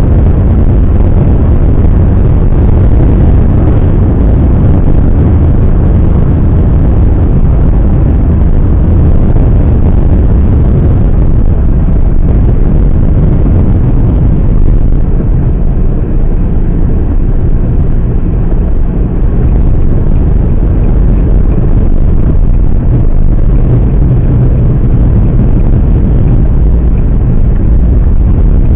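Car driving along a highway: a loud, steady low rumble of road and wind noise.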